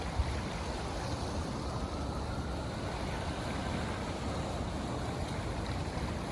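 Steady ocean surf washing against the shore, with an uneven low rumble of wind buffeting the microphone.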